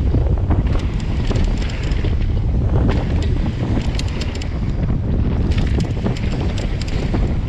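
Wind buffeting a handlebar-mounted action camera's microphone on a fast mountain-bike descent, a steady heavy rumble. Over it run frequent sharp clicks and rattles of the tyres on loose gravel and the bike jolting over the trail's bumps.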